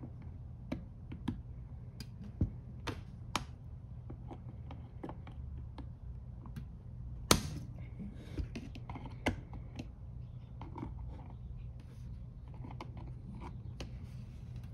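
Small metal carburetor parts and hand tools clicking and tapping as a DFC328 carburetor is taken apart, with one sharper click about seven seconds in. A steady low hum runs underneath.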